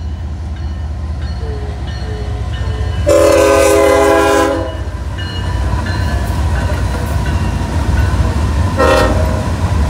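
BNSF diesel freight locomotives passing close by with a steady low rumble. The lead locomotive's horn sounds one long blast about three seconds in and a short blast near the end.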